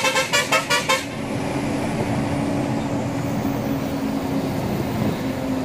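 A lorry's engine running steadily on the road, with road noise. In the first second a horn sounds a fast string of about five short toots.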